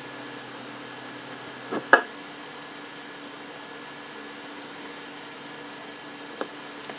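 2-metre amateur radio receiver on a repeater between transmissions: a steady low hiss and hum, broken by a short sharp burst about two seconds in and a smaller click near the end.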